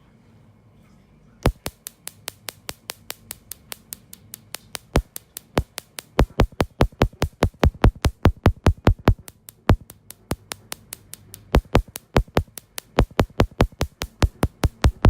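Carbon laser peel pulses: a laser handpiece firing sharp snapping clicks about four to five times a second, with short irregular pauses, starting about a second and a half in.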